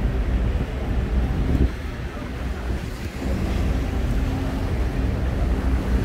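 City street ambience: a steady low rumble of traffic, with wind buffeting the microphone.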